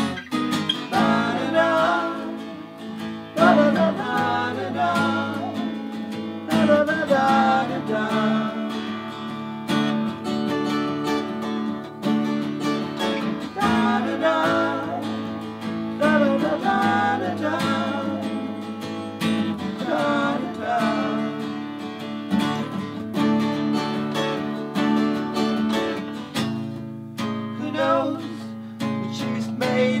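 Two acoustic guitars playing an instrumental passage together, with strummed chords and a melody line rising in and out over them every few seconds.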